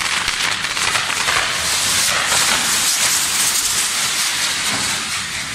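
Fireworks on a torito, a bull-shaped firework frame, burning and spraying sparks: a loud, dense, steady hiss with fine crackle in it.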